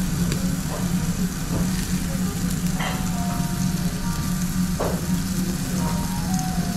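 Meat sizzling on a gas-fired tabletop yakiniku grill: a steady frying hiss over a constant low hum, with a few light clicks.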